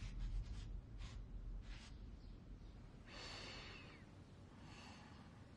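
Quiet room tone with a few soft paper rustles from an unfolded letter in the first two seconds, and a faint breath about three seconds in. A low music tail fades out at the start.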